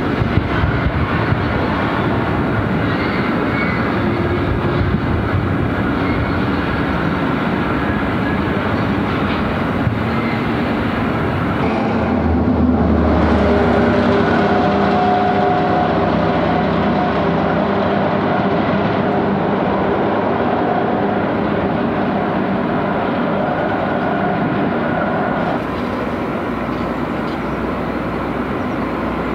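Train running along the track, most likely hauled by a diesel locomotive: a continuous rolling rumble from the rails, with a steady engine drone becoming clearer about 12 seconds in. The sound shifts abruptly twice.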